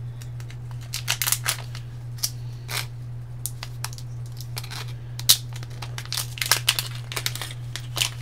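A small plastic zip bag of LEDs being handled, crinkling in irregular crackles and clicks, over a steady low hum.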